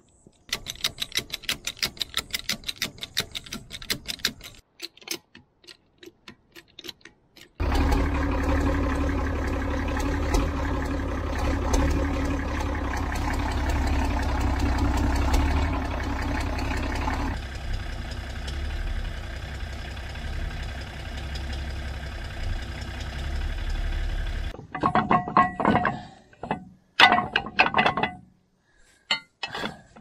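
International TD9 bulldozer's diesel engine running steadily for about seventeen seconds, its sound thinning partway through before it stops abruptly. Before it comes a quick run of light clicks, and after it a few sharp metal knocks.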